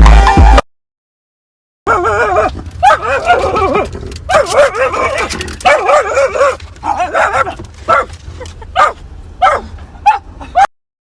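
A dog whining and yipping in a long run of short, wavering calls that waver up and down in pitch, stopping shortly before the end.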